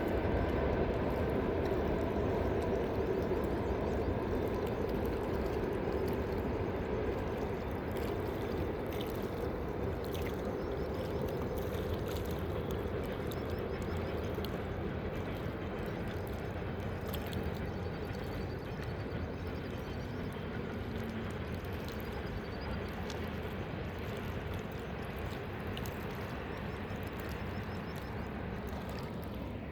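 Steady rush of flowing water, slowly growing quieter.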